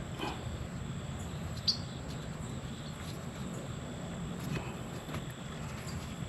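Steady low outdoor background noise with a few faint clicks and rustles from hands working among parts in a car's engine bay, and one brief high chirp about a second and a half in.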